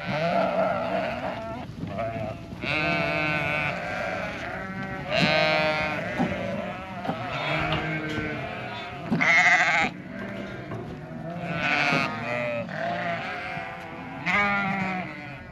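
A flock of sheep bleating continuously, many ewes and lambs calling over one another, with high lamb calls and lower ewe calls mixed together.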